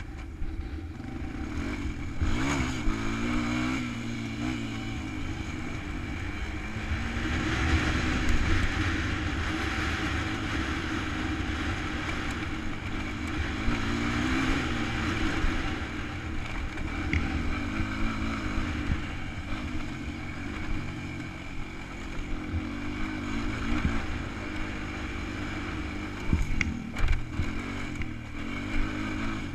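ATV engine running as the quad is ridden over a dirt trail, its revs rising and falling again and again. A few sharp knocks come through near the end.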